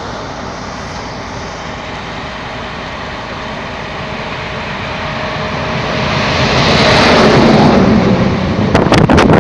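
A vehicle running, growing steadily louder until it is loudest about seven seconds in, with a few sharp knocks near the end.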